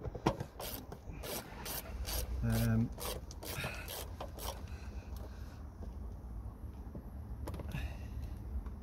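Torx T25 tool turning and tightening the air filter housing lid screws: irregular clicks and scraping rubs of metal on the screw heads and plastic, with a short low hum about two and a half seconds in. Wind rumbles on the microphone throughout.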